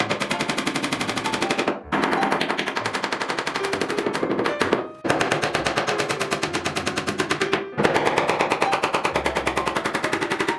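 Cordless impact driver hammering screws into plywood in four runs of about three seconds each, each stopping abruptly.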